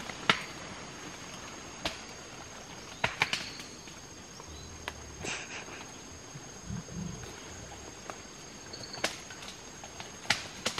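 Mountain gorillas moving in forest vegetation: sharp snaps of breaking twigs and branches, scattered about eight times, and two short low grunt-like sounds around the middle, over a steady high insect hum.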